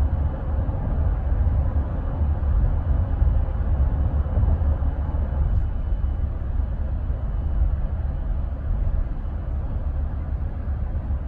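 Steady road and tyre noise with a low rumble inside the cabin of a 2018 Honda Pilot cruising at about 50 mph.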